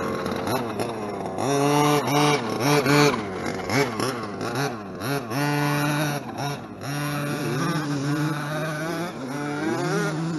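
Redcat Rampage MT V3 1/5-scale RC monster truck's 32cc Zenoah G320 two-stroke engine, fitted with an ESP race-ported head, revving up and falling back several times as the throttle is worked, with steadier running in between.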